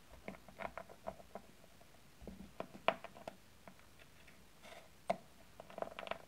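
Miniature wooden rolling pin rolling over dough on a mat: a run of small, irregular clicks and taps, with a few sharper knocks.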